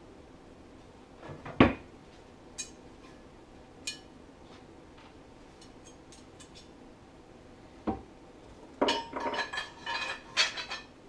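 Metal tools and snowmobile clutch parts being handled on a workbench, clinking and knocking. There are a few single clanks, then a quick run of rattling clinks near the end.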